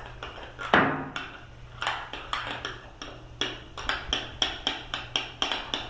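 A utensil scraping and clinking against a glass dish as thick slime is stirred hard, with one sharper knock about a second in and then steady strokes about three a second.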